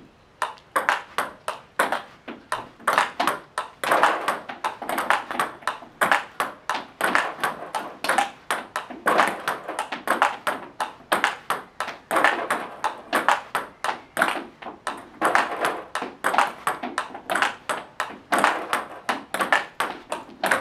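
Table tennis multi-ball drill: fed balls striking rubber paddles and bouncing on the table, a steady stream of sharp ball clicks at several a second with no break, as a stream of topspin feeds is met with forehand blocks.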